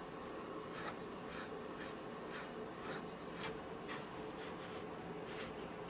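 Screw of a wooden Moxon bench vise being turned by hand: faint scratchy rubbing with light irregular clicks, a couple a second, over a steady faint hum.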